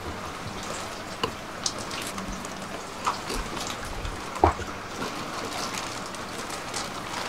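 Water splashing and dripping around a plastic bag with a caught fish inside as it is dipped into aquarium water: a steady rush of water with scattered drips and plops, the loudest about four and a half seconds in.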